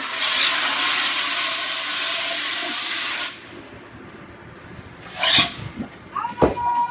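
Loud, steady hiss of a pressurised spray discharge putting out a white cloud, cutting off about three seconds in. A short hissing burst follows about two seconds later, then a knock and a brief steady tone near the end.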